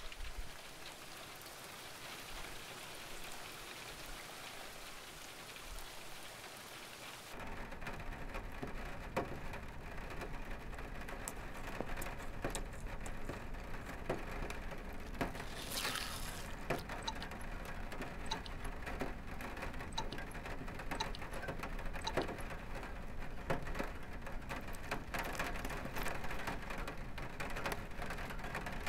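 Steady rain-like noise: a soft hiss at first, then, about seven seconds in, a fuller patter with many small ticks and crackles, and a brief louder hiss about sixteen seconds in.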